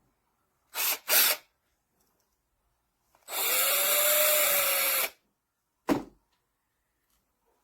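BLACK+DECKER cordless drill motor running: two short trigger pulls about a second in, then a run of nearly two seconds with a whine that rises as the motor spins up and then holds steady. A single click follows near the end.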